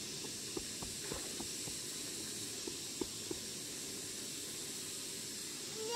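Steady background hiss with a few faint, scattered clicks in the first few seconds.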